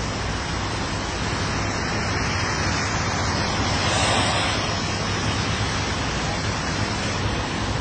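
Steady rushing road noise with a low engine hum, swelling briefly about four seconds in.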